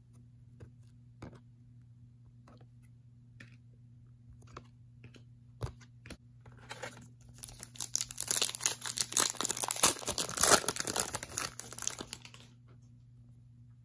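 A few faint clicks of trading cards being handled, then from about seven seconds in several seconds of crinkling, tearing plastic card packaging, loudest near the middle of that stretch, before it stops.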